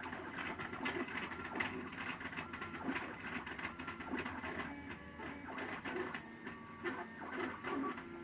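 MakerBot Thing-O-Matic 3D printer running mid-print: its stepper motors give short whining tones that jump from pitch to pitch as the head moves, with quick ticks mixed in.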